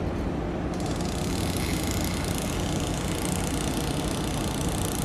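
Large container ship passing close by, its engine and machinery giving a steady low hum under a broad rushing noise. A higher hiss joins about a second in.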